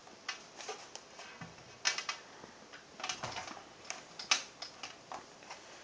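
Toshiba Satellite L755 laptop being handled and turned over: a string of irregular light clicks and knocks from its plastic case, the sharpest one about four seconds in.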